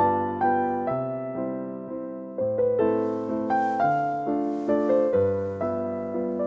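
Background music: a gentle piano melody played over chords, with a new note about every half second.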